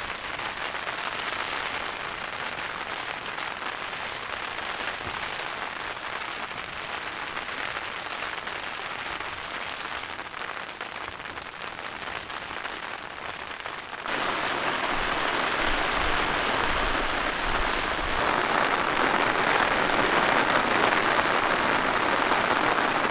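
Steady rain falling on a tent's fabric, an even patter with no single drops standing out. About fourteen seconds in, it suddenly becomes louder and brighter.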